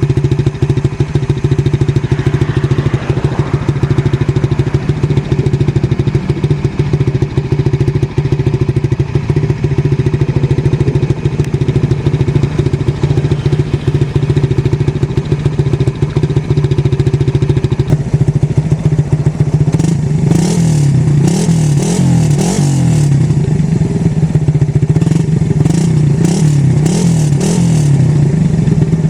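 Suzuki Raider 150 Fi motorcycle's single-cylinder engine running through its exhaust canister, idling steadily at first. About two-thirds of the way in, the throttle is blipped repeatedly, so the pitch rises and falls quickly, with sharp crackles from the exhaust.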